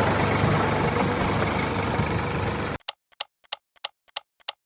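Small engine running steadily. It cuts off abruptly about three seconds in and is followed by sharp, even ticks, about three a second.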